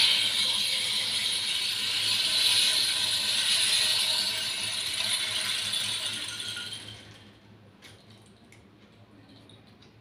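Bamboo rainstick held upright, its filling cascading down inside in a steady rain-like patter. About seven seconds in the flow thins out to a few scattered clicks as the last of the filling trickles down.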